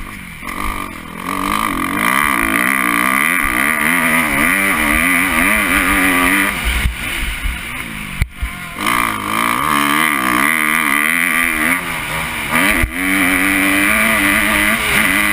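2013 Kawasaki KX250F's single-cylinder four-stroke engine racing on a motocross track, its pitch rising and falling constantly as the throttle is worked through turns and jumps. The throttle is chopped off briefly several times, with a sharp knock about eight seconds in.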